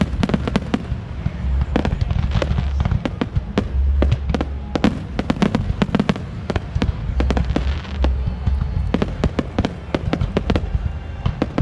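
Fireworks display: a rapid, continuous barrage of sharp bangs and crackles over deep booms.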